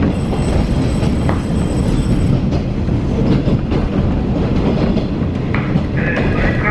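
Interior of a KiHa 40 series diesel railcar under way: a steady rumble of wheels on rail and the diesel engine, with a thin high wheel squeal over the first couple of seconds.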